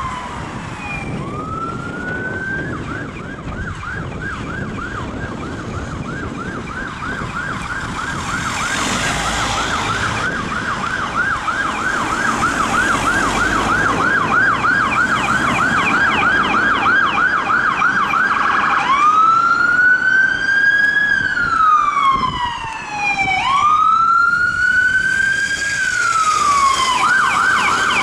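Ambulance siren sounding a fast yelp, about three cycles a second, as the Mercedes ambulance comes up through traffic. About two-thirds of the way in it switches to a slower wail with two long rise-and-fall sweeps, then goes back to the yelp near the end.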